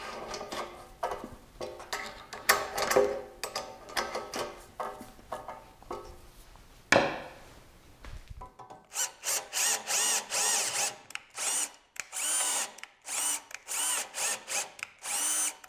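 Light clicks and knocks of hand tools on an aluminium extrusion frame. About eight seconds in, a cordless drill driving a spiral-flute tap into the ends of the aluminium extrusion takes over, its motor whining in short trigger pulses about two a second.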